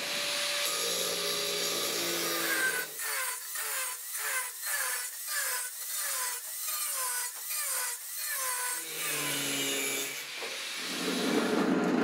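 Angle grinder with a cut-off disc running, then cutting through a steel pipe in rhythmic strokes, about two a second, its pitch dipping with each bite before it runs free again. Near the end a different, louder machine noise takes over.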